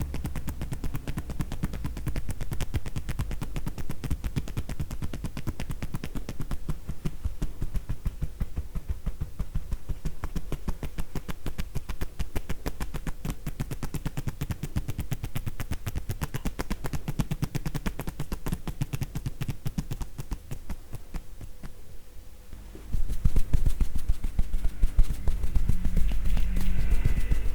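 Hands tapping on a person's body in tapotement (kōdahō) massage: soft, hollow pats in a fast, steady rhythm. About 23 seconds in, the strikes become clearly louder.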